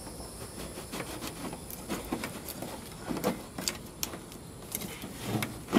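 Faint scraping and scattered light clicks of a fuel pump lock ring being pressed down and turned by hand so its threads catch on the fuel tank.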